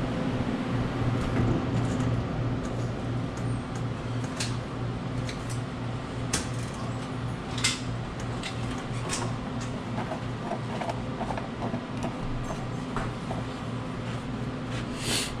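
Scattered clicks and light knocks of metal parts being handled while a new seal is fitted onto an ice machine's auger, over a steady low hum.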